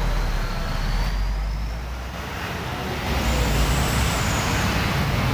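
Close road traffic: a coach's diesel engine rumbling as the bus moves past, then, after a brief dip about two seconds in, motorcycles and a truck passing.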